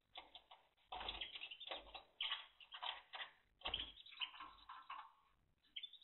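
A Timbrado canary moving about its wire cage: irregular bursts of fluttering and rustling, a few with a soft thump, and some short chirps about four to five seconds in.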